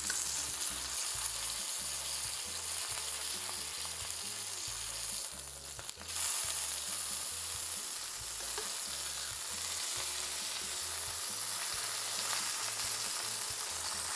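Sesame-crusted ahi tuna steaks sizzling steadily in hot oil in a stainless steel skillet as they are seared on their sides. The sizzle dips briefly about halfway through, then carries on.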